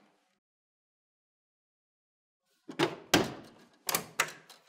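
Hard plastic cover panel on a Lexmark C6160 printer's staple finisher being set down and pressed into place. About three seconds in come two sharp plastic knocks close together, then two more about a second later.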